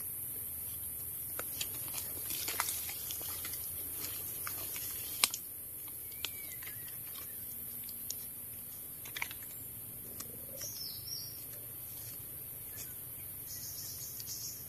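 Scattered small clicks and snaps of twigs and dry leaf litter underfoot and under hand on a forest floor, over a steady high hiss, with an occasional bird chirp.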